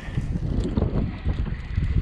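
Wind buffeting the microphone on an open boat at sea: a gusty, uneven low rumble.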